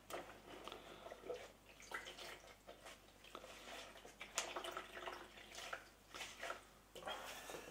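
Faint handling noises from a cleaning cart: irregular rustles and light clicks and knocks as hands work among the things in the cart.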